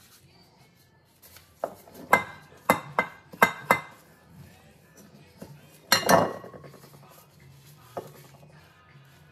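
A utensil clinking and scraping against a ceramic bowl and glass baking dish while scooping cheese filling into jalapeño halves: a run of sharp clinks from about one and a half to four seconds in, a cluster near six seconds and a single one near eight.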